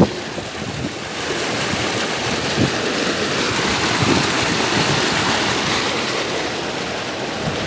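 River water surging and splashing against a concrete embankment: a steady rushing of churning, foaming water that grows a little louder about a second in.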